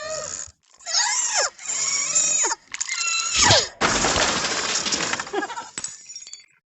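A cat yowling in several short calls that bend and fall in pitch, followed by about two seconds of harsh, noisy sound.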